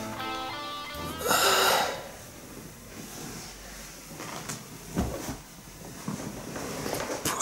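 A song with guitar ends about a second in. A loud breathy rush follows, then quiet rustling of clothes and sofa as a man shifts and stretches, with a soft knock about five seconds in and another near the end.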